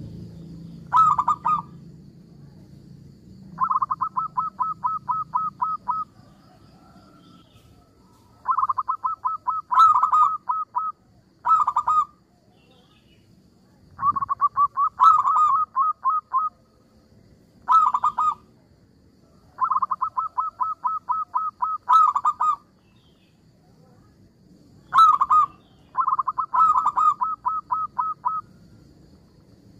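Zebra dove (perkutut) cooing: five bouts of rapid staccato trilled coos, each about two to three seconds long, with short single notes between the bouts.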